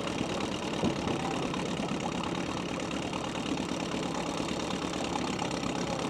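Small boat's outboard motor idling steadily.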